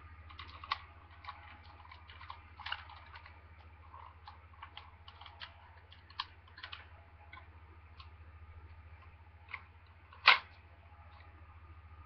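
Hard plastic parts of a M.A.S.K. helicopter toy clicking and rattling as it is handled and its parts are moved, with one loud snap about ten seconds in. A faint steady hum runs underneath.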